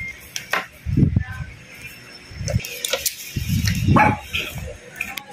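A dog barking several times, with a few sharp clicks and taps from small parts being handled.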